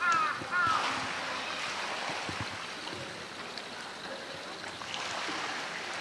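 Steady rush of flowing water in a polar bear enclosure's pool. In the first second there are a few quick, high-pitched calls.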